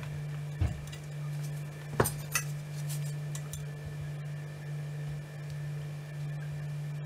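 Light metallic clicks of small hand tools against the brass plates of a clock movement being reassembled: three short clinks in the first two and a half seconds, over a steady low hum.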